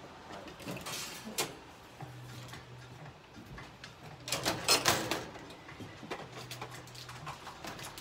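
Handling noise: clicks, knocks and rustling as bottles and equipment are picked up and moved, with a dense cluster of louder clicks about halfway through. A low hum comes and goes twice.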